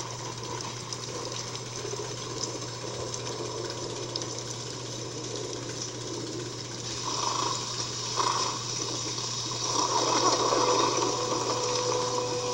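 Steady rain on a film soundtrack, played back through a screen's speaker with a constant low hum. About seven seconds in, louder muffled sounds swell over the rain and come and go.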